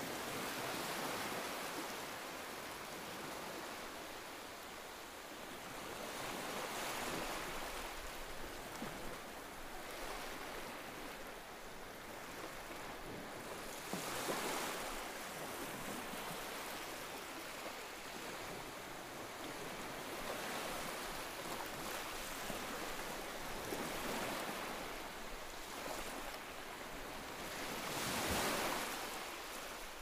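Rushing river water, a steady roar that swells and eases every few seconds.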